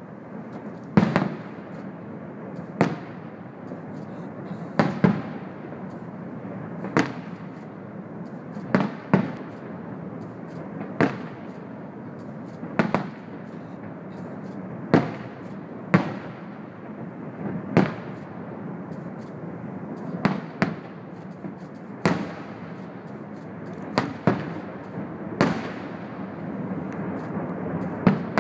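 Aerial fireworks shells bursting in sharp bangs, roughly one every one to two seconds, over a steady rushing noise between the bangs.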